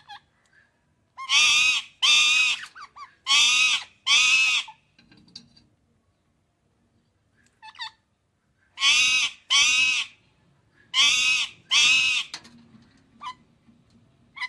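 Parrot giving loud calls in quick pairs: two pairs close together in the first few seconds, then two more pairs after a pause of about four seconds. A few short, faint chirps come in between.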